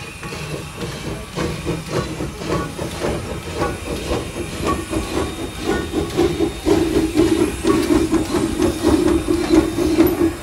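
Small 0-4-0T tank steam locomotive working past, giving quick, regular exhaust chuffs over a hiss of steam, growing louder toward the end.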